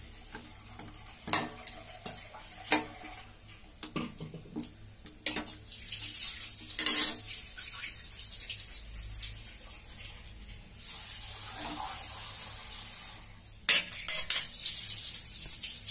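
Steel ladle clinking and knocking against stainless steel cooking pots, a scattering of sharp metallic knocks. A steady hiss comes in about six seconds in and again for about two seconds from eleven seconds.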